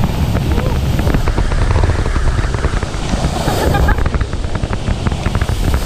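Water rushing and splashing around an inflatable tube sliding down a water slide, with wind and water buffeting the action camera: a loud, steady rumble full of crackling splashes.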